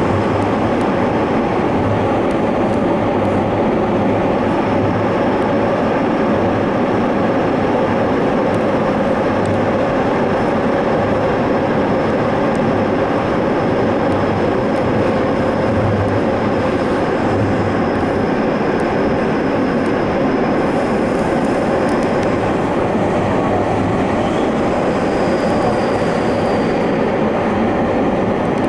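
Tokyo Metro Fukutoshin Line express train running at speed, heard from inside the rear car: a steady rumble of wheels on rail with a faint high whine.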